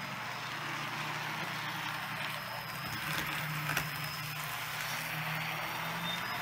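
Tyco HO-scale General model steam locomotive, repowered with a coreless motor and flywheel, running along the track as it is brought up to speed: a steady low motor hum over an even hiss, with a couple of light clicks about three and four seconds in.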